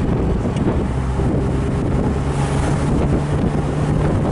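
1969 Mercedes-Benz 280SL's fuel-injected 2.8-litre inline-six running under way, heard from inside the open convertible with wind on the microphone. The engine note drops about a second in and steps back up a little after two seconds.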